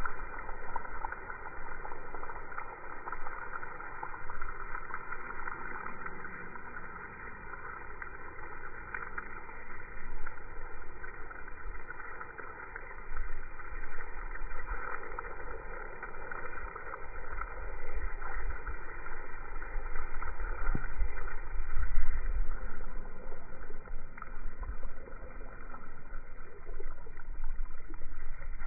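Water spraying in a fine shower over a lawn, slowed down in slow-motion playback to a dull, steady rush. Irregular low rumbles swell and fade beneath it throughout.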